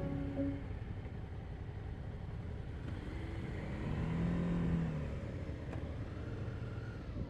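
Motorcycle engine running under a steady low rumble, its note rising and falling once about midway.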